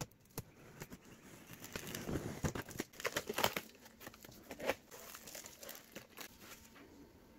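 Cardboard shipping box being opened by hand: packing tape tearing and the cardboard flaps scraping and rustling as they are pulled open, with sharp crackles and a few clicks. It is busiest from about two to five seconds in, then dies down.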